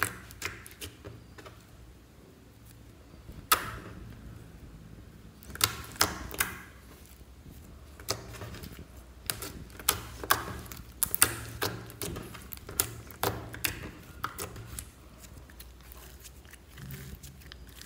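White glitter slime being squished, poked and folded by hand, giving irregular sharp clicks and wet pops. The pops come thickest in the middle and thin out near the end as the slime is stretched.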